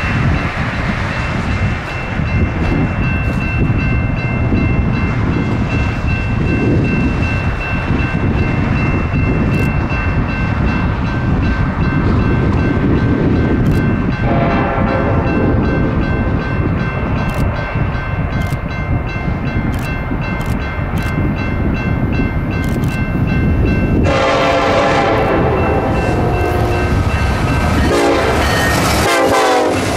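A BNSF train passing close by, with a heavy, continuous rumble of wheels and cars on the rail, scattered clicks and steady high ringing tones over it. The horn sounds loudly through the last several seconds, and its pitch drops near the end.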